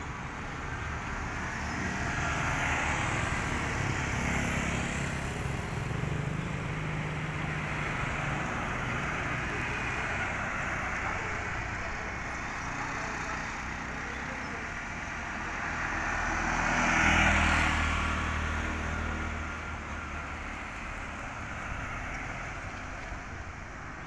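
Road traffic: motor vehicles passing on a paved road, with a louder pass that swells and fades about two-thirds of the way through.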